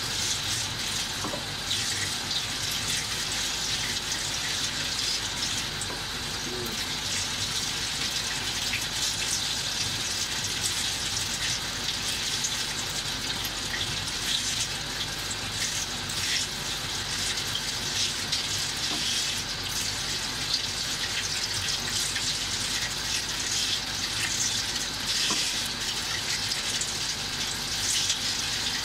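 Kitchen tap running steadily into a stainless-steel sink, the stream splashing over hands and garlic cloves being peeled under it.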